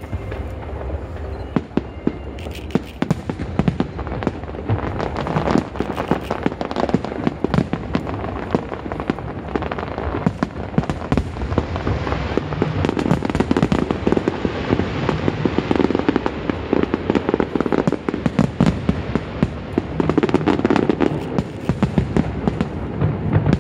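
Fireworks display: a dense, continuous run of sharp bangs and crackling shell bursts over a low rumble.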